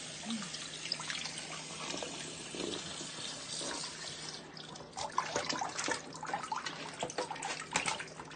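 Kitchen faucet running into a stainless steel sink while whole crabs are rinsed under it. From about five seconds in, crab shells clatter and knock against the steel sink and pot.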